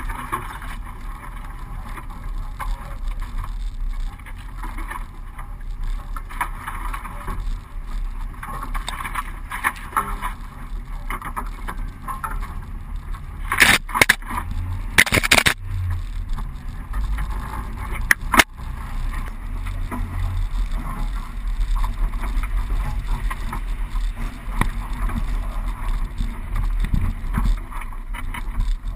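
Suzuki four-wheel drive travelling along a rough sandy bush track: steady engine rumble and body rattle over the bumps. There are a few sharp knocks near the middle, as the vehicle jolts or brushes against the scrub.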